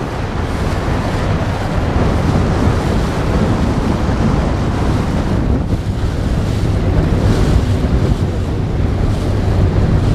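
Steady wind buffeting the microphone over the rush of water, recorded from a boat out on the canal.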